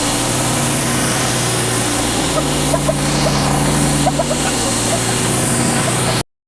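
Simpson AL4240 gas pressure washer running steadily at full spray, its engine hum under a loud hiss of high-pressure water on concrete. The sound cuts off abruptly near the end.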